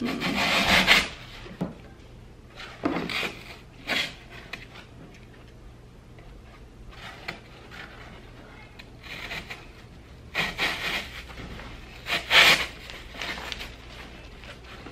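Artificial flower stems and leaves rustling and rubbing as they are handled and pushed into an arrangement, in scattered short bursts, loudest near the start and about twelve seconds in.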